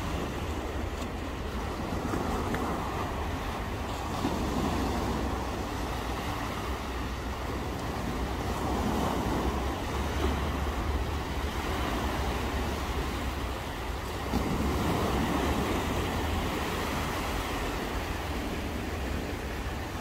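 Sea surf washing onto the beach, rising and easing every few seconds, with wind rumbling on the microphone.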